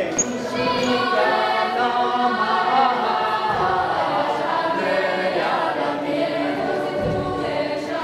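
Choir of young girls singing together, many voices holding long notes.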